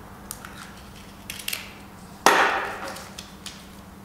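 Hard plastic draw ball being handled and twisted open: a few light clicks, then one sharp crack a little over two seconds in.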